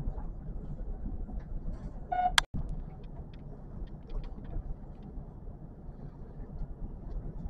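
Kintetsu electric commuter train running, a steady low rumble of wheels and motors on the track. About two seconds in a brief high-pitched tone sounds and cuts off suddenly, followed by a few light clicks.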